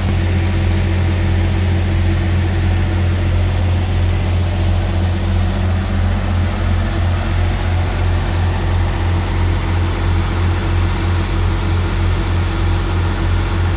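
Miller Big Blue 600-amp engine-driven welder running steadily with a low, evenly pulsing hum, powering stick welding on a pipe. The hiss and crackle of the welding arc sit over it.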